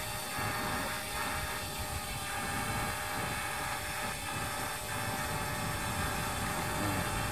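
Parrot Bebop 2 quadcopter's propellers whining steadily in flight, with wind rumbling on the microphone.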